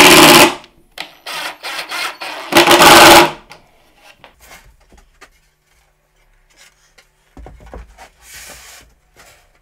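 Ryobi cordless drill driving screws through pocket holes into a wooden box panel, in two short whirring bursts about two and a half seconds apart. Then light knocks, and near the end a low scrape of the wooden box being handled on the bench.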